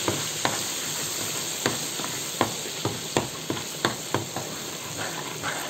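Spice masala frying in oil in a pan, giving a steady sizzle, while a steel ladle stirs it and taps and scrapes against the pan with irregular clicks, a couple a second.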